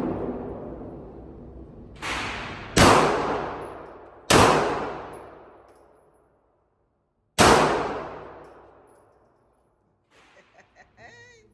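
Gunshots at an indoor shooting range: four sharp reports one to three seconds apart, the first softer, each ringing out in a long echo.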